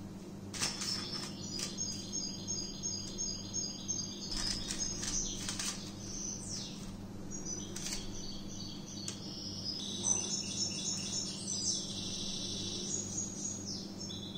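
A bird chirping and trilling in short, high, whistled phrases, over a low steady hum, with a few sharp clicks early on.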